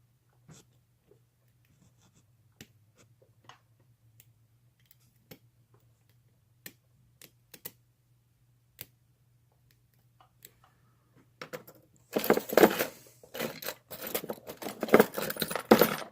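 Faint, scattered clicks of a lock pick working in the keyway of a vintage Yale padlock. From about twelve seconds in comes a loud clatter of small metal objects being handled and set down.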